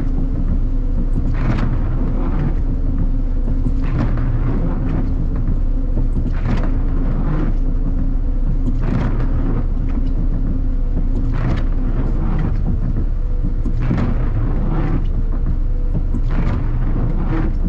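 City bus under way, heard inside: a steady engine and road rumble with a low hum. Over it, pairs of short swishes repeat about every two and a half seconds.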